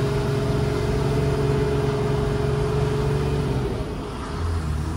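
Toyota 4x4's diesel engine running with road noise, heard from inside the cab while driving. The engine note drops to a lower pitch about four seconds in.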